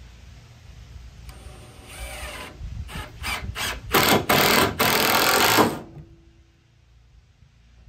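Cordless impact driver sinking a long screw into stacked 2x6 lumber: a few short trigger bursts, then about two seconds of steady hammering as the screw drives home, stopping suddenly.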